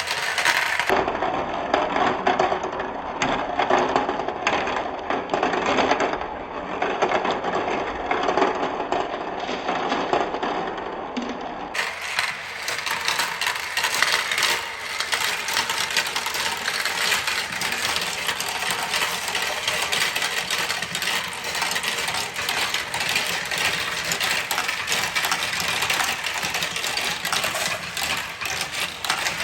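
Marbles rolling and clattering down wooden marble-run tracks: a dense, continuous rattle of many small wooden clicks and knocks.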